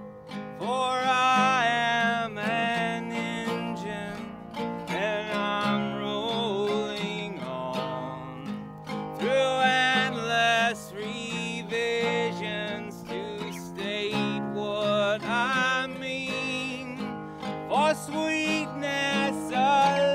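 Strummed acoustic guitar with a man singing over it, and the wavering, sliding tone of a bowed musical saw.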